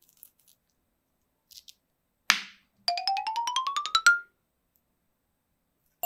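A single sharp click, then a cartoon-style sound effect: a quick run of pitched notes climbing steadily in pitch for about a second, ending on a short held note.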